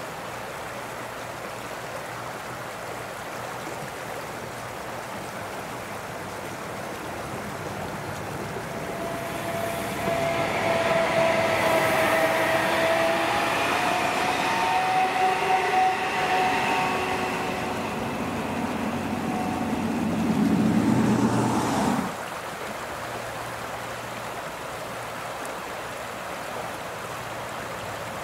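Appenzeller Bahnen ABe 4/12 Stadler narrow-gauge electric railcar passing close by. It grows louder over several seconds, then passes with a rumble and a whine of several steady tones. The sound cuts off abruptly about two-thirds of the way through, leaving a steady rushing background noise.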